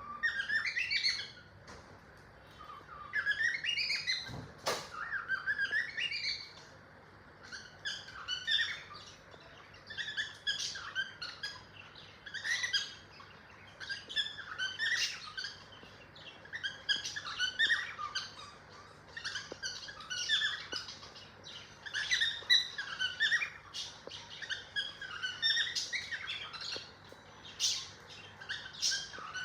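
Cockatiel chirping in short bouts repeated every second or two, with a single sharp click about four and a half seconds in.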